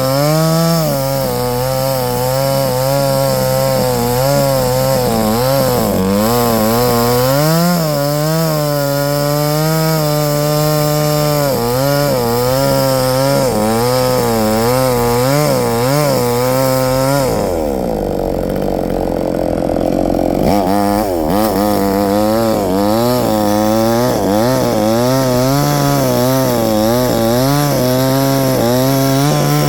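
Chainsaw engine running hard, its pitch wavering up and down as it cuts through wood. About two-thirds of the way in the engine speed falls away for around three seconds, then it picks straight back up.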